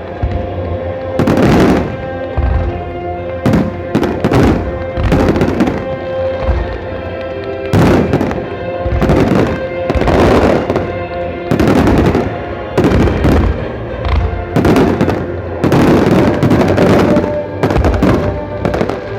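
Aerial fireworks bursting over and over, about a dozen booms at uneven intervals, some in quick pairs, with music playing underneath.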